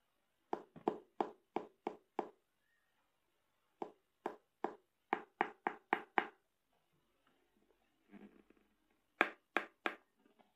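Knuckles knocking on a hollow triceratops piggy bank in three quick runs of sharp knocks, a few a second, with a short hollow ring after each. The knocks show off its thick, sturdy shell. Faint handling rustle about eight seconds in.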